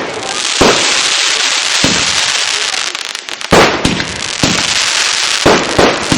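Aerial fireworks display: a dense, continuous hiss of effects overhead, punctuated by about five sharp bangs from bursting shells, the loudest about halfway through.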